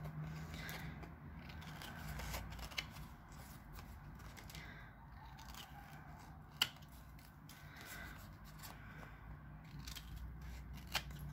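Scissors snipping diagonal corners off a card box base taped with double-sided tape: quiet, with a few sharp, scattered snips, the loudest about two-thirds of the way through.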